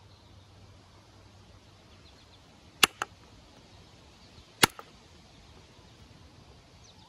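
Antler billet striking a copper-tipped Ishi stick set on a chert piece, indirect-percussion flintknapping to drive flakes off. Two sharp knocks about two seconds apart, each followed by a quick, lighter second click.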